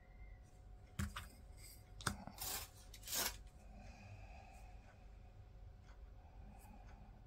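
Light handling noises of wooden confectionery tools: a few short taps and scrapes between about one and three and a half seconds in, then faint room quiet.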